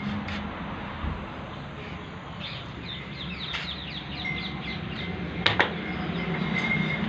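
Small birds chirping in a quick run of short, falling notes about two and a half to four seconds in, over a steady low hum. A sharp click comes about five and a half seconds in.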